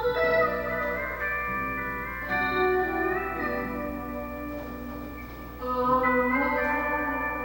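Live band playing instrumental music: held chords on guitar and keyboard, swelling louder near the start and again about three-quarters of the way through, over a steady low hum.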